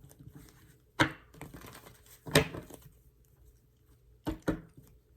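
Tarot cards being handled and laid down: soft rustling between four sharp slaps, one about a second in, one near the middle, and two in quick succession near the end.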